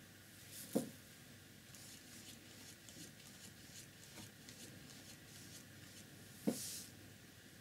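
Faint, repeated swishing strokes of a flat paintbrush being worked back and forth over a paper palette to blend grey and black tempera paint, with two short knocks, one about a second in and one near the end.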